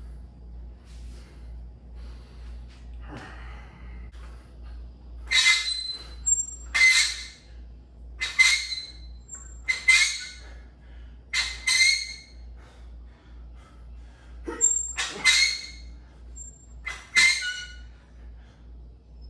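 A man's sharp, hissing exhalations, one with each rep of barbell curls, some with a whistling squeak in them. They come about every one and a half seconds from about five seconds in, with a pause near the middle of the set.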